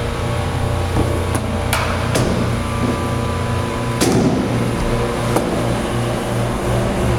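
Long-handled shovel knocking and scraping against the stainless-steel manway of a mash tun as spent grain is pulled out, in several separate strokes. A steady low machine hum runs underneath.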